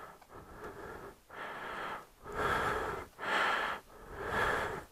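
A man breathing heavily close to the microphone, about one loud breath a second.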